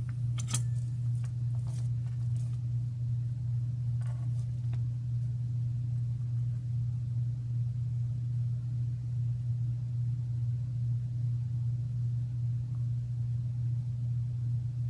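A steady low hum throughout, with a few faint light clicks from handling small parts near the start and about four seconds in.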